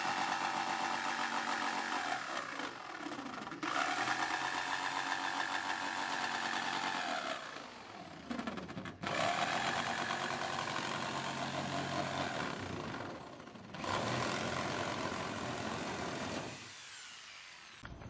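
Stanley electric jigsaw cutting a polycarbonate sheet, the blade buzzing through the plastic. Its pitch sags and the cut eases off briefly three times before the saw stops near the end.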